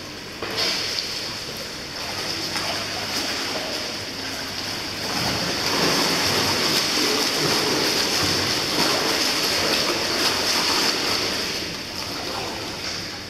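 Swimming-pool water sloshing and lapping under a steady high hiss, growing louder about five seconds in.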